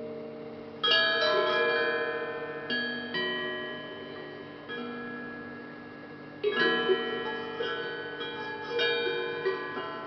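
Hamon, a hand-made iron folk instrument, played in a slow loose run of struck notes. Some notes come in quick pairs, and each rings with bell-like overtones and fades slowly.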